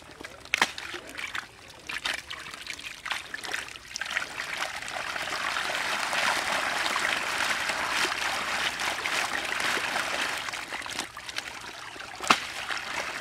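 Water splashing and sloshing as a woven bamboo basket full of eels and climbing perch is swished through shallow muddy water to wash the catch. The splashing grows steady and loudest a few seconds in and eases near the end. A single sharp click comes near the end.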